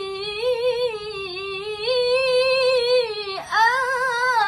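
A woman reciting the Qur'an in the melodic tilawah style, unaccompanied, drawing out one syllable into a long ornamented note with a slow wavering pitch. She takes a quick breath about three and a half seconds in and goes straight on with the next phrase.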